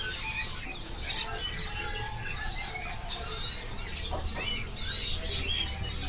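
Many caged small songbirds chirping and twittering: a dense run of short, high, quick calls overlapping without a break, over a faint low hum.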